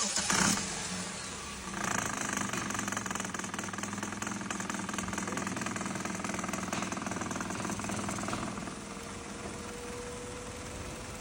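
Vehicle engine running, rising in speed about two seconds in and dropping back to idle about eight seconds in; it is the engine noise that is to be traced and fixed.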